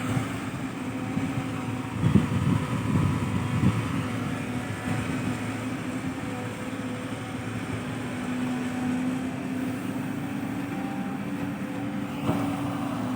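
Heavy diesel engine running steadily, with a burst of clattering about two seconds in and a short knock near the end.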